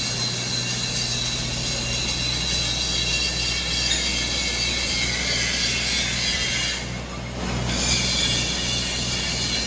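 Steady crackling hiss of an electric welding arc over a low machine hum, the hiss cutting out briefly about seven seconds in.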